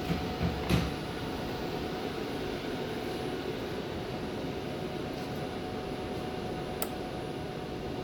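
Steady mechanical hum and air rush from a running HVAC air handler, with a few light knocks in the first second and one sharp click near the end as the ballast wiring connectors are handled.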